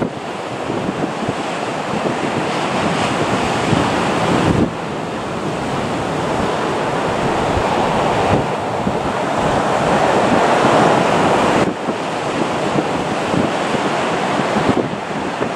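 Steady jet roar from the Pratt & Whitney JT8D engines of a taxiing Boeing 737-200, mixed with wind buffeting the microphone. The roar grows louder towards the middle and changes level abruptly a few times.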